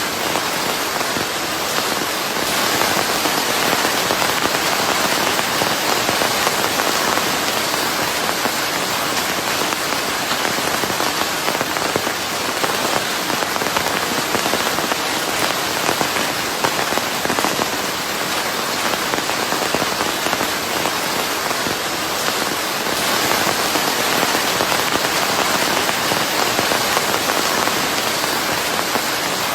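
Steady rain falling on a surface, a dense even hiss of many drops that does not let up, blended with white noise.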